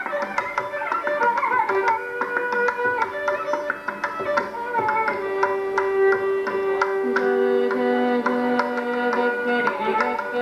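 Carnatic violin playing a melodic passage with sliding ornaments, then long held notes, over a steady run of mridangam strokes.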